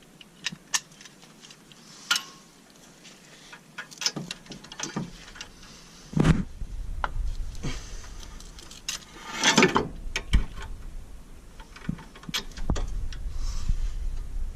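Metal clicks and clinks of a socket ratchet and tools tightening the brake caliper bracket bolts, with two louder clattering bursts partway through.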